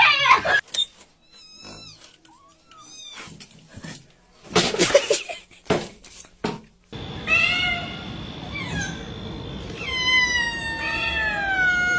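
Domestic cats meowing: a few short meows in the first half, then long, drawn-out meows falling in pitch in the second half, with a loud noisy burst about five seconds in.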